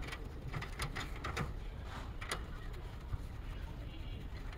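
Scattered light metallic clicks and taps at irregular intervals, from fitting the refrigerant pipe flare nuts onto the brass service valves of a split air conditioner's outdoor unit, over a low steady rumble.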